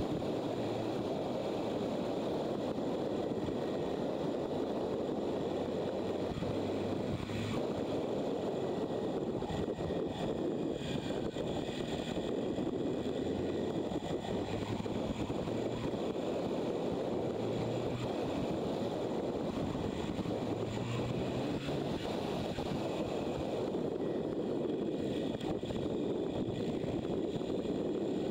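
Motorcycle riding at speed: steady wind rush over the microphone with the engine's low drone underneath, its pitch shifting a little now and then with the throttle.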